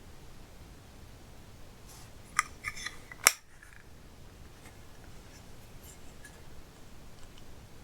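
A quick cluster of sharp clicks and crackles about two and a half to three and a half seconds in, the last click the loudest, followed by a few faint ticks. They come from hands handling slime and makeup.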